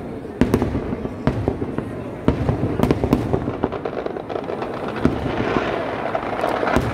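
Kerala temple-festival fireworks (vedikkettu): a string of sharp, irregularly spaced bangs from shells and firecrackers, thickening near the end into a dense, continuous crackle as a large barrage goes off.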